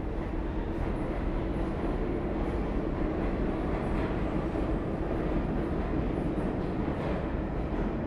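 New York City subway train running, a steady low noise with a few faint clicks.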